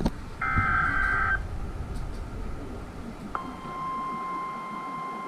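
Weather radio alert broadcast: a burst of about a second of warbling digital data tones (a SAME header burst), then about two seconds later a steady 1050 Hz weather alert tone begins and holds. This is the alarm that opens a new warning message.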